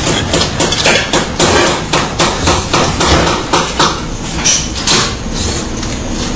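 AM-10 pneumatic terminal crimping machine clacking repeatedly: sharp, irregular strokes several times a second, each with a hiss of air.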